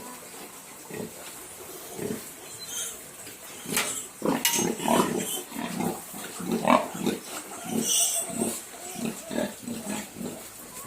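Duroc piglets grunting: a few scattered grunts at first, then from about four seconds in a busy run of short grunts, several a second.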